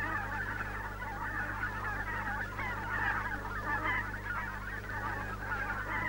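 A penguin colony's dense chorus of many overlapping honking calls, with a steady low hum underneath.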